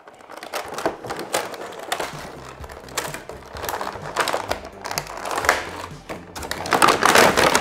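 Background music over quick clicks and rustles of a statue's box and plastic packaging being handled and worked open, busiest and loudest near the end.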